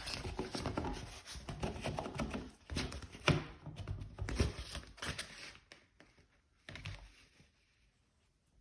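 A piece of pasted wallpaper rustling and rubbing as it is handled and slid into place to line up its pattern, with many small scrapes and crinkles. The handling stops about five and a half seconds in, and there is one more short rustle a little later.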